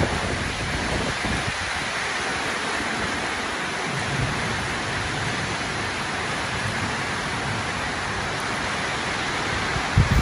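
Steady rain falling, heard from under a metal-roofed shelter, with a few low thumps near the end.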